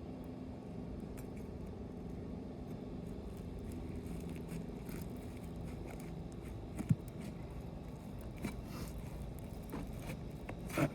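Scattered scrapes and clicks from a roofing snake and hammer working under asphalt shingles, with a sharp knock about seven seconds in and another near the end, over a steady low rumble.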